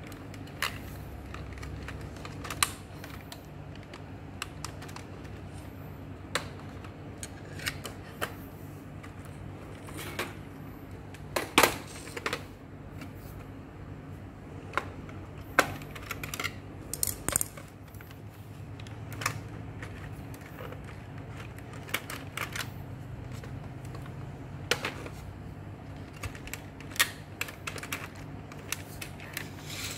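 Irregular clicks and taps of plastic and metal as an Epson EB-W01 projector's insides are handled: wire connectors being pulled and the power supply's metal shield knocked and shifted. The loudest clicks come in a quick cluster near the middle.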